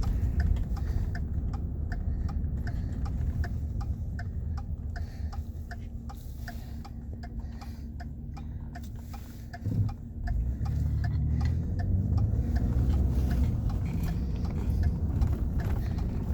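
A car's turn-signal indicator clicking steadily and evenly inside the cabin, over the low rumble of the vehicle. A single thump about ten seconds in, after which the rumble grows louder.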